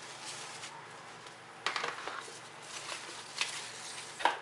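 Rustling and crinkling of a thin foam packing sheet being handled and pulled off a laptop cooling pad, in a few short bursts: one about one and a half seconds in, one near the middle and a sharper one near the end.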